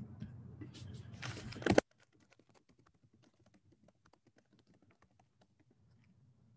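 Typing on a computer keyboard: clicks over a low hum, rising to a louder clatter a little under two seconds in, where the sound cuts off abruptly. After that only faint, scattered clicks remain.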